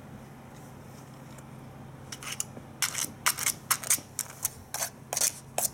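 Low steady hum of a small vibrating toy, then, from about two seconds in, an irregular run of sharp clicks and scrapes, two or three a second, on hard plastic.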